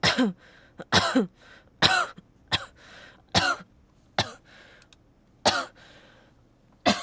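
A person with a throat cold coughing repeatedly, about ten sharp coughs roughly a second apart, several ending in a short voiced tail that drops in pitch.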